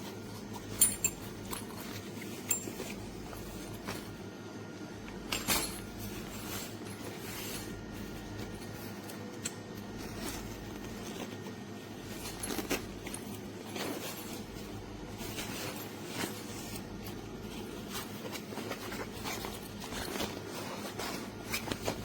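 Scattered light clicks and knocks, with the loudest about a second in, over a steady low hum.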